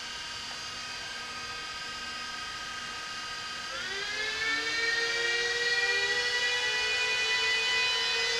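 Antminer S17+ bitcoin miner's cooling fans running with a steady whine that rises in pitch and gets louder about four seconds in, as the fans ramp up to speed.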